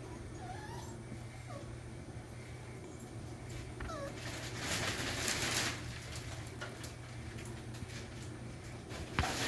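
Puppies giving several short, high-pitched whimpers in the first few seconds, then a louder burst of rustling about five seconds in, and a click near the end.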